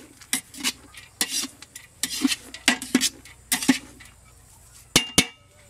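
Metal spatula scraping and turning egg fried rice in a large aluminium pot, a stroke about every half second, then stopping. Near the end there are two sharp metal knocks with a brief ring.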